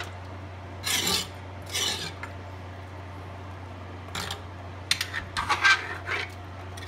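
Metal tongs scraping against the bottom and sides of a cast iron pot while stirring pieces of pork in broth: short rasping strokes about a second in and near two seconds, then a quicker cluster from about four to six seconds.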